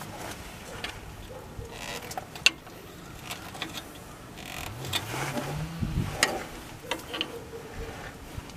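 Screwdriver tip clicking and scraping against the steel control-arm bracket and the stiff foam lower control arm bumper as the bumper is pried in behind its locking tangs, in irregular sharp taps, the loudest about two and a half seconds in. A low hum rises in pitch about five seconds in.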